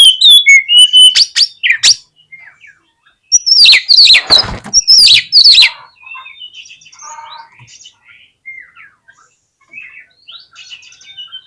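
Oriental magpie-robin (kacer) singing a loud, rapid run of whistled and sweeping notes, with a harsher, noisier burst about four to five seconds in. The song then drops to quieter scattered chirps and short whistles. It is the agitated song of a fighting kacer.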